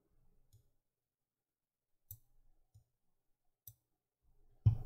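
A few faint, separate computer mouse clicks spread over a few seconds, with a louder low thump near the end.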